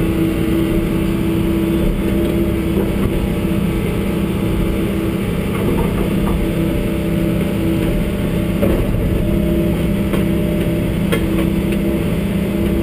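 John Deere 75D excavator's diesel engine running at a steady speed under hydraulic load, heard from inside the cab, with a few faint clicks.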